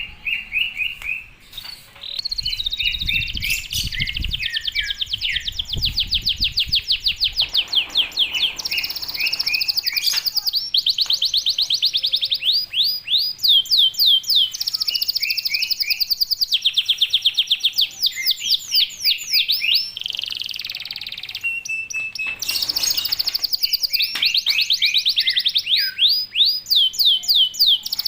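Domestic canary singing a long, fast song of rapid trills, each phrase a quick run of repeated notes, with brief breaks between phrases. A low rumble sits under the song for the first several seconds.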